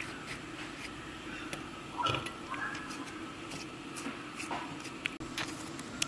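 Quiet hand work with a knife on soft blanched tomatoes: peeling and cutting, with scattered faint clicks and a slightly louder soft knock about two seconds in, over a low steady hum.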